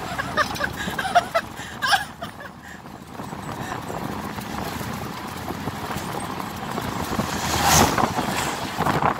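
Wind and road noise of a moving pickup truck, heard from its open cargo bed, with short bits of voices in the first two seconds and a louder swell of rushing noise near the end.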